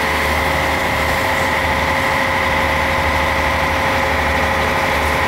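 Crawler crane's diesel engine running steadily: a low rumble with a steady high whine over it.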